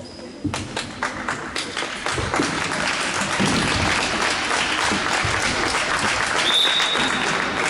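Spectators applauding in a sports hall, a dense clatter of clapping that starts about half a second in and carries on. A short high whistle sounds near the end.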